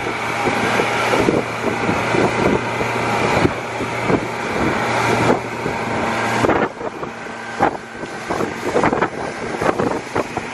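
Honda 115 four-stroke outboard motor running at cruising speed with the boat under way, a steady drone over rushing wind and splashing wake. About two-thirds of the way through, the engine drone drops away, leaving gusty wind on the microphone and water slapping.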